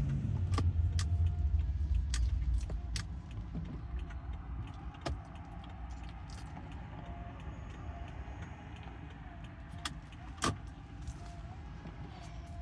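Heavy rain on a car, with separate drops knocking sharply on the body and glass over a steady low hum. A loud low rumble fades away over the first few seconds.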